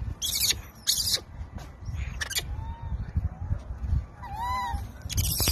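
Infant macaque giving thin, arching coo calls: a faint one about two and a half seconds in and a clearer one near the end, with short scratchy bursts in between.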